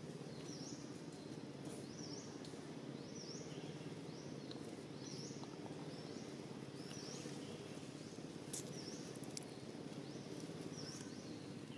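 Outdoor ambience: steady low background noise, with a small bird's short high chirp repeated about once a second, and a few brief rustles of dry leaves about two-thirds of the way through.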